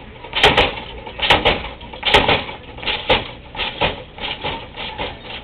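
An uneven series of sharp knocks and clatters, roughly one or two a second.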